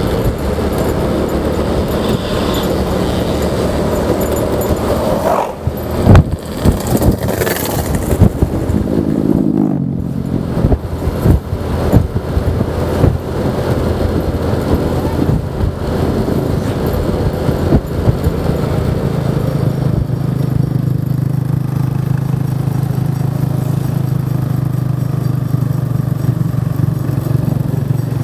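Honda Vario 125 scooter's single-cylinder engine running on the move. Several sharp knocks come between about five and twelve seconds in, the engine note falls around ten seconds in, and it then settles into a steady drone.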